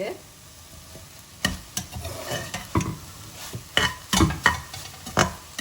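Minced chicken sizzling gently in oil on low heat while a spatula stirs it, knocking and scraping against the pan about seven times from a second and a half in.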